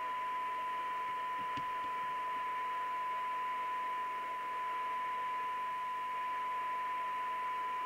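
Steady 1 kHz test tone over an even hiss, heard through the Cobra UK75ST FM CB radio as it receives a weak, tone-modulated carrier from a signal generator during receive alignment.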